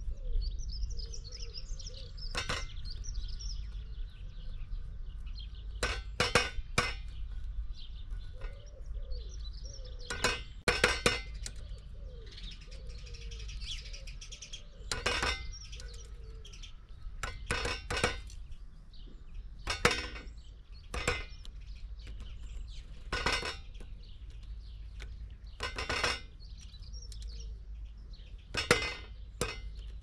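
Great spotted woodpecker pecking at a feeder: sharp, irregularly spaced clinking knocks, some in quick runs of two or three, with birds chirping faintly in the background.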